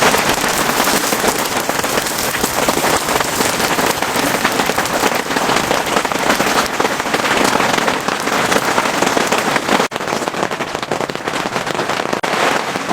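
Heavy rain pattering hard and densely on a surface, with a momentary break about ten seconds in.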